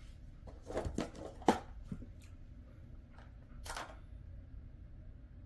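A chicken breast jerky treat being handled by hand: a few short, irregular crinkly rustles and snaps, the sharpest about a second and a half in.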